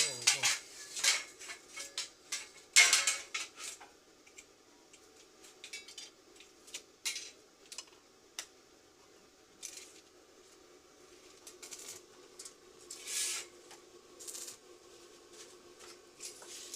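Light clinks and clicks of small metal objects being handled: a quick run of them in the first few seconds, then scattered single taps.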